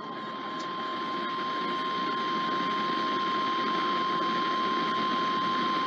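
NOAA Weather Radio's 1050 Hz warning alarm tone: one steady high tone over a steady hiss, growing louder over the first two seconds, then held for about six seconds and cutting off near the end. It is the alarm tone of a routine weekly test.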